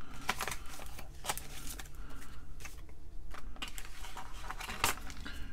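Plastic parts bags crinkling and rustling as kit parts are handled, with scattered light clicks and taps; the sharpest tap comes near the end.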